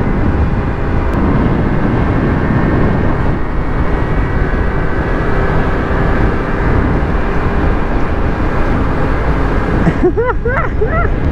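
Wind rushing over the camera microphone together with the steady running of a Peugeot Kisbee scooter's small engine at cruising speed. About ten seconds in, a short voice-like sound rises and falls over it.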